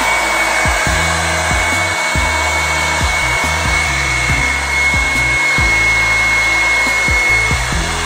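Revlon One-Step Volumizer hot-air brush running steadily: a loud rush of blown air with a steady high whine from its motor, as the brush is drawn through a section of hair.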